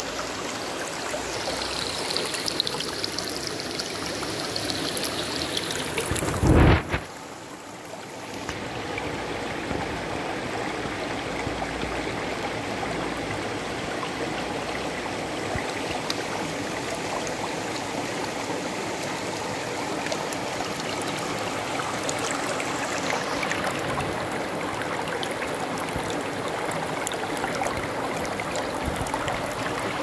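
Shallow stream running over stones and pebbles, a steady rushing of water, with a single loud thump about six and a half seconds in.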